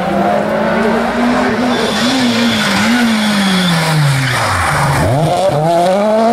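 Renault Clio rally car's engine at full attack: the pitch rises and drops through gear changes on the approach, falls as the car brakes for the corner with a couple of quick revs on the downshifts, then climbs again as it accelerates out of the corner.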